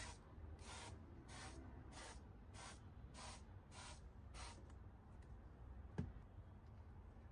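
Pump-spray bottle of olive oil misting into a frying pan: about eight short hisses, one every two-thirds of a second, then a single knock about six seconds in.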